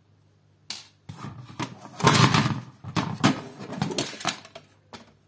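Desktop computer case cover being handled and moved: an irregular run of knocks, scrapes and rustles of the panel, loudest about two seconds in.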